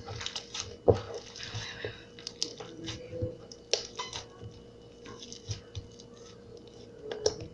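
Sticky slime being squished and rubbed between the hands: irregular wet squelches and small clicks, busiest in the first two seconds.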